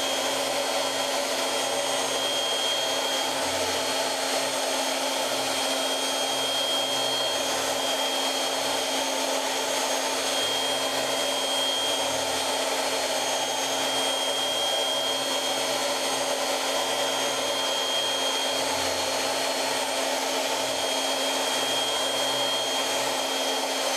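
CNC machine spindle running steadily at high speed with a constant high whine, its long end mill cutting a cleanup pass around the edges of a pocket in a foam block.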